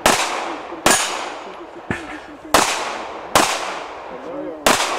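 Handgun shots fired in a practical-shooting (IPSC) course of fire: five loud shots at uneven gaps of roughly a second, each with a long echoing tail, and a fainter shot about two seconds in.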